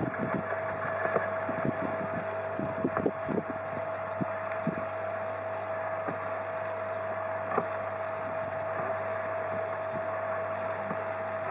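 Electric garden shredder running with a steady motor whine. Scattered cracks and snaps of thin branches, mostly in the first few seconds, as branches are gathered and fed into its hopper.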